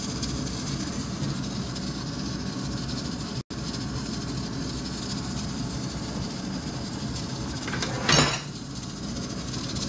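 Steady rumbling hiss of a pot of pork-bone broth cooking over a lit gas burner. About eight seconds in comes a short, loud clatter.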